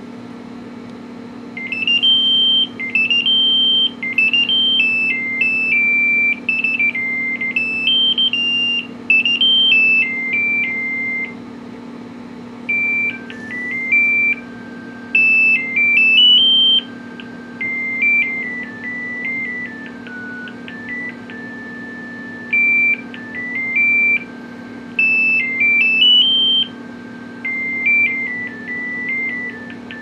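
Kyocera QCP-3035 cell phone playing a monophonic ringtone through its small speaker: a beeping melody of single pure tones stepping up and down in pitch, starting about a second and a half in.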